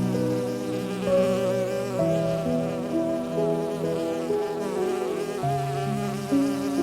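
Relaxing instrumental background music: sustained, wavering held notes over slow chord changes every couple of seconds.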